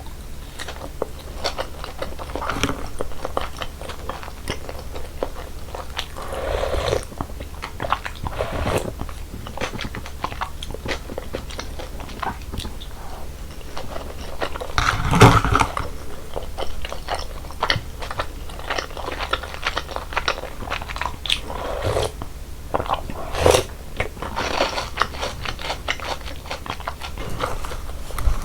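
Close-miked eating sounds of cold naengmyeon noodles in slushy iced broth: steady chewing and crunching with many small wet clicks, with a louder mouthful about halfway through.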